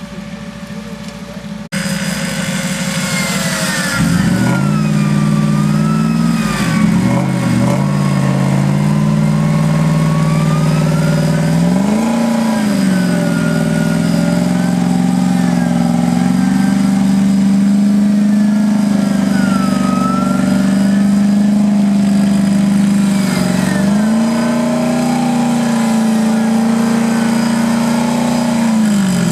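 Off-road 4x4 truck's engine held at high revs under load as it climbs a muddy slope on its winch line, the revs dipping and picking up again several times, with a fainter wavering whine above it.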